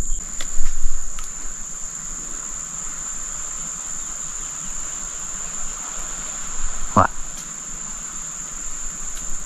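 Insects buzzing in one steady, high-pitched, unbroken drone, with a few faint clicks in the first second.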